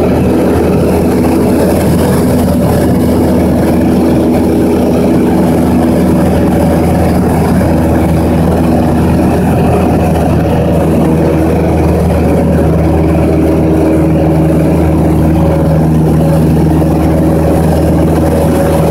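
Small aircraft's engine running steadily, heard from on board: a loud, even hum with several steady low tones.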